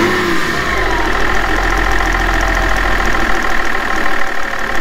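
BMW X5 E53's 3.0-litre inline-six diesel engine idling steadily.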